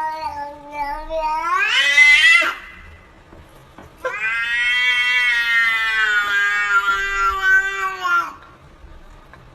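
A domestic cat giving two long, drawn-out yowls. The first rises in pitch and breaks off about two and a half seconds in; the second is held steady for about four seconds and drops slightly at its end.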